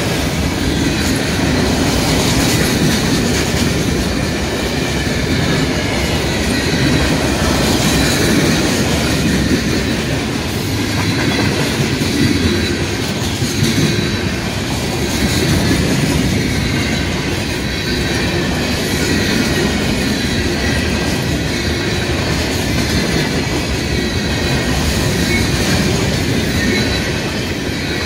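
Freight train of boxcars and a covered hopper rolling steadily past close by: a continuous rumble and clatter of steel wheels over the rail joints, with a faint thin squeal from the wheels.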